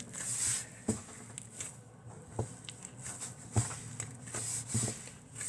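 Handling noises: scattered small clicks and soft knocks with light rustling, over a faint low hum.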